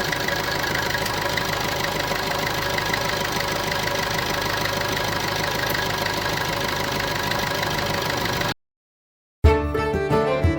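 Maruti Suzuki Swift VDi's 1.3-litre diesel engine idling steadily. It cuts off abruptly about eight and a half seconds in, and after a moment's silence music with violin begins.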